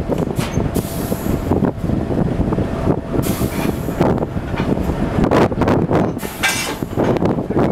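Diesel locomotive running close by while it is coupled to a passenger car, a dense steady rumble with scattered metallic knocks from the couplers and two short hisses of air.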